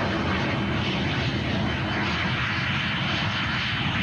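Early jet aircraft's engine running steadily as the plane moves along the runway: an even rushing noise over a low rumble, with a thin high whine.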